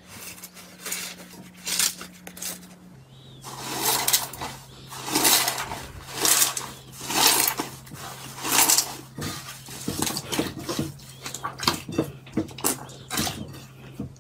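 Thick slime being squeezed, pulled and pressed by hands in a glass bowl: wet squelching swells about once a second, with many short sharp pops and clicks in the second half. A faint steady hum lies underneath.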